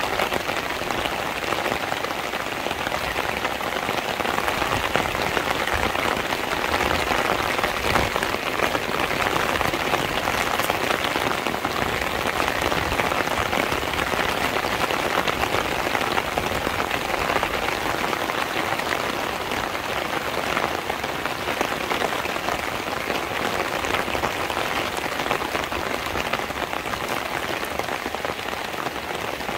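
Steady rain falling: an even, dense hiss of many small drop ticks that holds at one level throughout.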